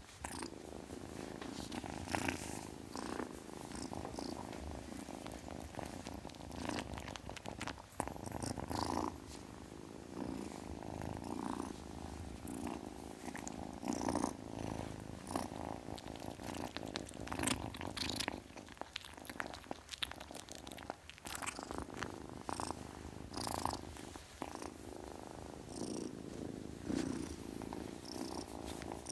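Kitten purring continuously, the purr swelling and fading, with scattered light clicks over it.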